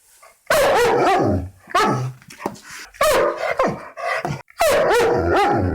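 Dog barking aggressively, a burst of loud angry barks starting about half a second in and repeating with short gaps.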